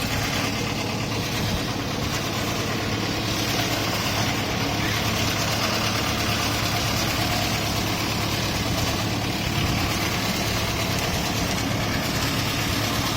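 Wood shaving machine running steadily, a constant motor hum under an even mechanical rumble.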